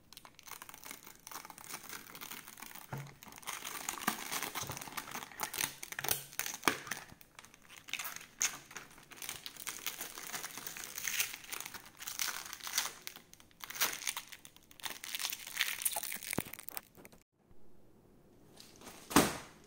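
Clear protective plastic film being peeled off the glossy black plastic base of an Acer SB220Q monitor stand, a steady run of crinkling and crackling for about seventeen seconds. The crinkling then stops, and near the end there is a single short knock.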